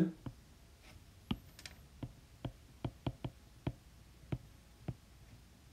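Stylus tip clicking against a tablet's glass screen while handwriting a word: about a dozen light, irregular clicks.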